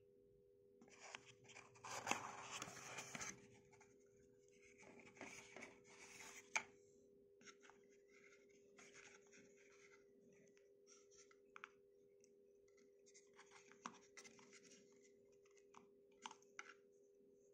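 Cardboard box and its insert being handled: quiet scraping and rustling with light knocks, busiest in the first few seconds, with a sharp tap about six and a half seconds in and scattered small clicks after.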